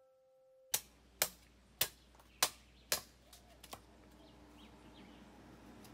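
Machete chopping into a green coconut: five sharp chops about half a second apart, then a couple of lighter taps.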